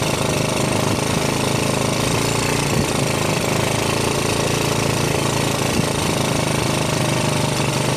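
A small engine running steadily, with its even drone heard under a constant rushing noise.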